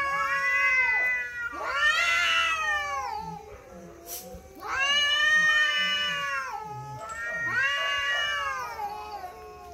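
Two cats caterwauling at each other in a face-off: long, drawn-out yowls that waver up and down in pitch, the two voices overlapping, in several bouts with a short lull about four seconds in. This is the threatening yowling of a territorial standoff.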